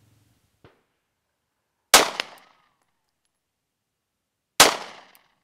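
Two shots from a Springfield XD-S 9mm subcompact pistol, about two and a half seconds apart, each with a short echoing tail and a sharp crack following it.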